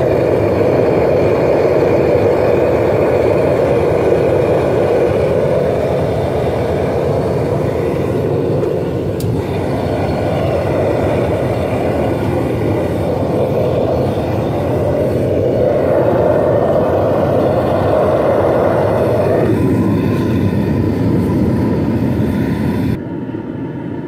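Propane burner of a FASTTOBUY 6 kg melting furnace running lit, with the regulator barely open: a loud, steady rush of burning gas. About a second before the end it drops suddenly to a quieter, thinner rush.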